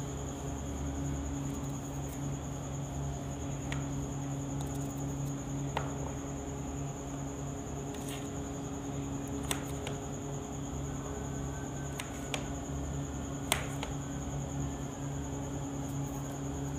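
Steady hum from a running appliance, with a thin high whine above it. Over it, a handful of short, sharp clicks at irregular intervals, from a knife slicing garlic cloves held in the hand and the pieces dropping onto a plastic tray.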